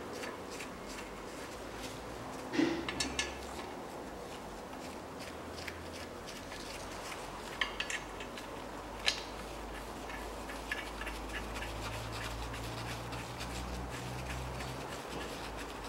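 Light metallic clinks and rubbing of metal parts and bolts being handled as the water pump pulley is fitted to the engine: a short cluster of clinks about three seconds in and a few more past the halfway point.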